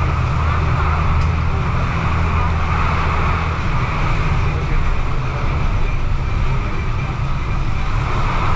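A bus's engine running and its road noise heard from inside the cabin while it drives: a steady low engine hum under a broad hiss. The engine's low note eases a little about three seconds in.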